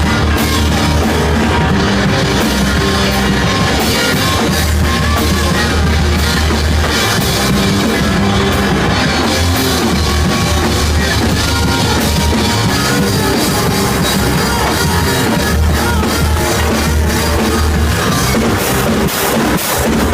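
Rock band playing loud and live, drum kit driving the beat, with no singing.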